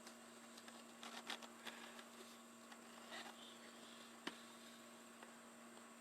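Near silence: a faint steady electrical hum, with a few light clicks and taps of small handling noises, a cluster about a second in and a sharper single click about four seconds in.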